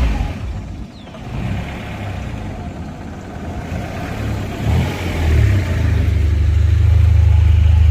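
Honda Prelude's H22A four-cylinder engine driving the car on the road, growing louder into a steady low drone from about six seconds in. The engine is misfiring, which the owner puts down to worn spark plugs and leads.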